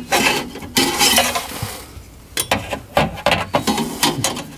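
Exhaust band clamp and steel exhaust pipe clinking and knocking as the clamp is handled and turned on the pipe: a run of short, irregular metallic clinks with a brief pause near the middle.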